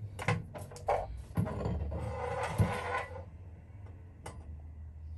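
A small green propane cylinder is handled and the camping stove's hose adapter is screwed onto its valve. There are several sharp metal clicks, then a rough scraping for about a second and a half, and one more click near the end.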